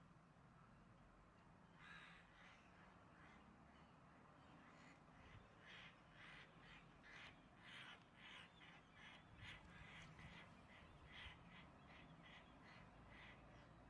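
Crow cawing over and over: one call about two seconds in, then a fast run of caws, about two a second, from about five seconds in. These are the calls of a crow pinned on the ground by a hawk.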